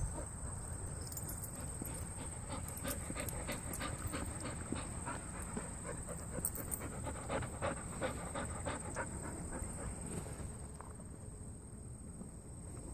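Dogs panting close by in quick, irregular breaths that fade toward the end.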